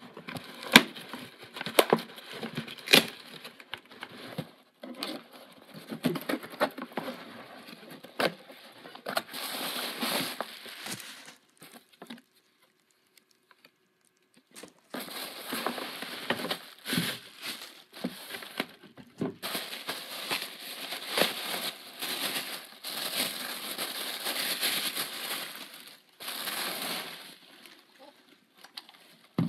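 A cardboard mailing box being unpacked by hand: plastic packing material crinkling and cardboard flaps rustling and tearing, with many sharp clicks and knocks. It stops for about three seconds near the middle, then the crinkling and handling start again.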